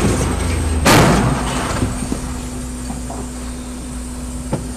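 A single loud crash of a vehicle collision about a second in, dying away over half a second, then a low steady hum of traffic and engine.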